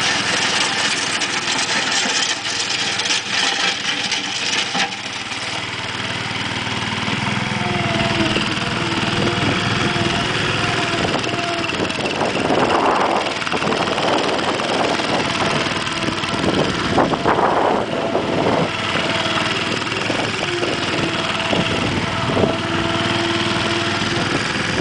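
Case 1816 mini skid steer's 16 hp Tecumseh engine running, its pitch shifting now and then, with two louder, rougher surges about halfway through and again a few seconds later.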